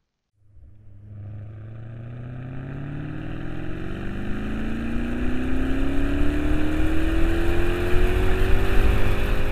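V8 car engine and exhaust accelerating, starting about half a second in, its pitch rising steadily and getting louder throughout. It is an exhaust note shaped by its engine and exhaust-line design.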